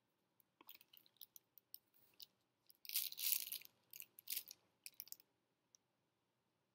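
Plastic piping bag of royal icing crinkling as it is picked up and squeezed, with scattered light crackles and rustles as hands move on parchment paper. The loudest crinkling comes about three seconds in, with a second burst about four and a half seconds in, then it stops.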